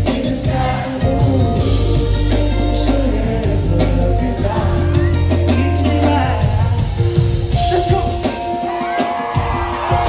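Live band playing with a male lead singer, heard from within the audience: a sung melody over drums, guitar and heavy bass. The bass drops out about eight seconds in while the singing carries on.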